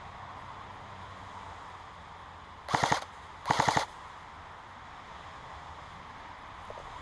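Airsoft gun firing two short rapid bursts, a little over half a second apart, over steady background hiss.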